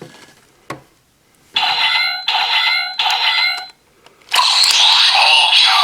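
DX Kamen Rider Geats toy belt with the Command Twin Buckle: a plastic click, then a short electronic standby jingle repeating three times, and about four seconds in the loud transformation sound effects and music start.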